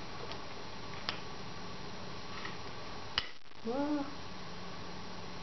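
A spoon clicks against a plate twice as whipped topping is scraped onto a brownie, the second click sharper, followed straight after by a short hummed "mm" that rises and falls in pitch.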